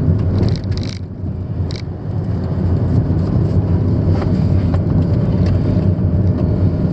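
Car driving, heard from inside the cabin: a steady low engine and road rumble that grows a little louder about two seconds in as the car picks up speed.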